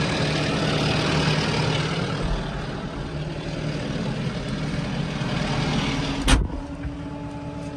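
Tractor engine running steadily, with a sharp thump about six seconds in, after which the engine sounds quieter.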